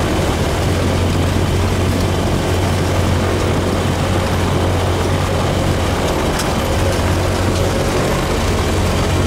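A light propeller aircraft's engine and propeller running steadily with a constant low hum, heard from inside the cockpit.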